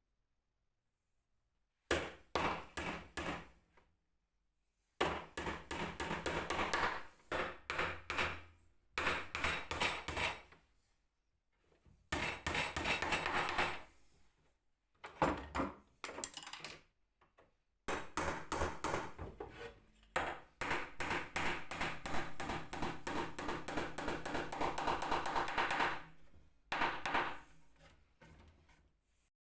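Hammer tapping on wood in quick runs of rapid blows, separated by short pauses, with a long unbroken run in the latter half.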